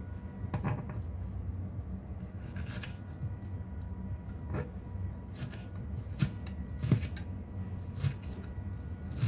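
Kitchen knife cutting a red onion on a wooden cutting board: unhurried, irregular knocks of the blade against the board mixed with crisp slicing sounds.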